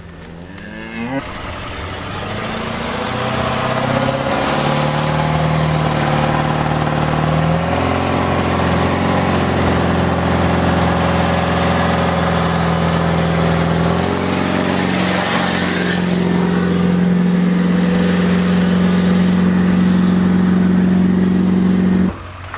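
Truck engine running under load, building up over the first few seconds and then holding steady. Its pitch shifts in a few steps along the way, and the sound cuts off abruptly near the end.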